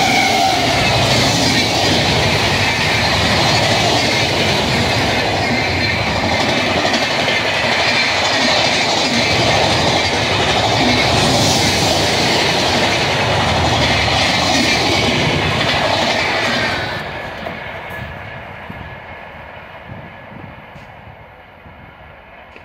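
Indian Railways WAP-7 electric locomotive and its express coaches passing close at speed, wheels clattering over the rail joints under a steady rush of noise. About seventeen seconds in the last coach goes by and the sound falls away as the train recedes.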